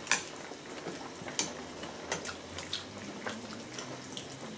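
Hotpot broth simmering and bubbling steadily, with scattered light clicks and taps of chopsticks and utensils against bowls.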